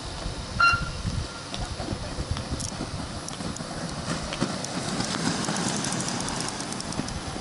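A short, sharp start-signal tone, then a pack of inline speed skates' wheels rolling and striding on asphalt. The rolling swells with quick clicking as the skaters pass close.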